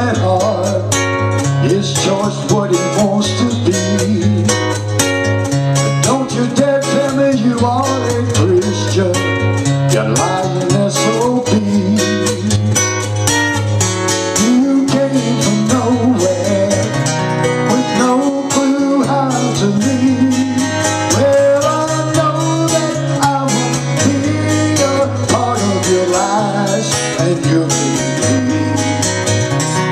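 Acoustic guitar fingerpicked in a country style: steady bass notes changing every second or two under a picked melody line.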